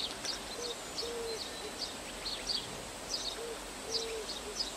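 Forest ambience: an owl hooting, two short hoots close together, then the pair again about three seconds later, over scattered faint high chirps and a steady background hiss.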